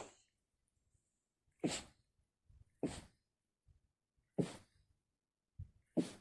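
A woman sneezing repeatedly in a fit into a hoodie sleeve: four sharp sneezes about a second and a half apart, with short breaths between them.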